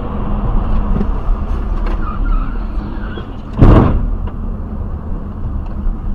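Car driving at highway speed, heard from inside the cabin through the dashcam: steady engine and tyre road noise. One brief loud thump comes a little over halfway through.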